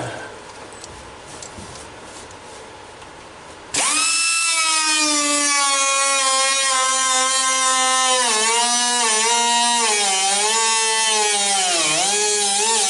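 Air-driven cut-off tool starting about four seconds in and running at a steady high whine, its pitch sagging and dipping again and again as the wheel bites into the sheet-steel floor pan being cut out.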